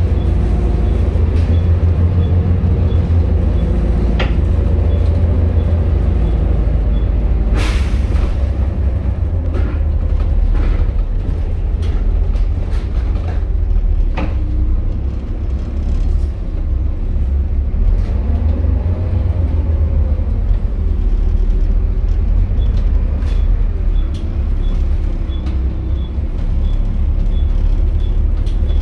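Volvo B7TL double-decker bus heard from inside while it drives: its six-cylinder diesel runs with a heavy, steady low drone, rising and falling a little in pitch with the revs. Body rattles and knocks come and go, with one sharp, louder noise about eight seconds in.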